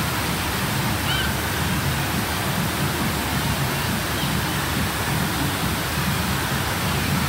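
Steady rush of water from a surf-simulator wave machine: a fast sheet of water pouring continuously up and over the padded ramp.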